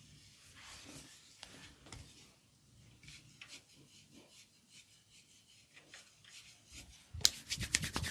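Hands rubbing and stroking over skin during a massage, faint and soft, with scattered light scrapes. About seven seconds in, a fast, much louder run of sharp strokes starts, roughly eight a second.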